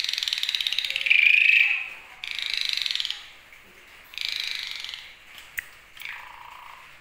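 Asian pied starling (jalak suren) giving harsh, rattling rasps, its 'ngorok' snoring call, in three bursts, the first about two seconds long. Near the end come a few sharp clicks and a softer, lower note.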